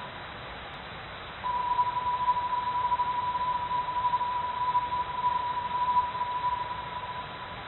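A steady high electronic tone, beep-like, over a constant hiss. It drops away at the start and comes back louder about a second and a half in, then eases off a little near the end.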